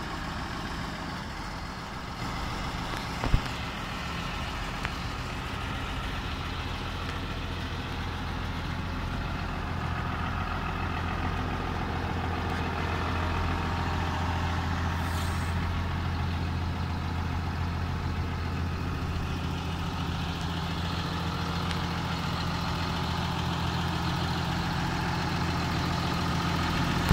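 John Deere 6930 Premium tractor's six-cylinder diesel engine idling steadily, with one sharp knock about three seconds in.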